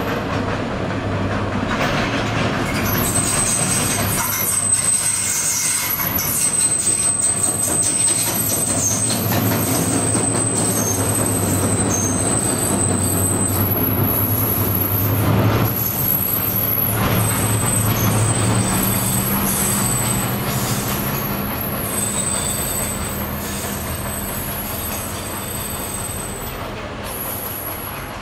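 SAN diesel locomotive passing and drawing away: a steady low engine hum with high-pitched squealing on and off, fading near the end as it moves off.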